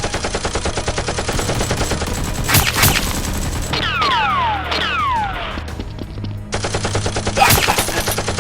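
Rapid automatic-gunfire sound effect with a few louder single shots. Partway through, the firing stops and several falling whistling tones sound, then the rapid fire starts again.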